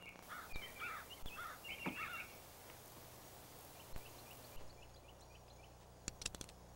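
Birds chirping in quick repeated calls, a busy run of them in the first two seconds and fainter ones later, over outdoor ambience. A few scattered light knocks, and a quick cluster of clicks about six seconds in.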